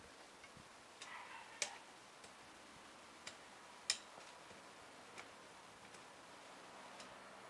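Quiet background hiss with about eight short, sharp clicks at uneven intervals, the loudest about four seconds in.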